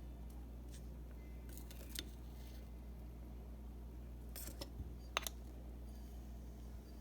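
Faint scrapes and a few small clicks of a spoon packing dry bath bomb mixture into plastic mould cases, over a steady low hum.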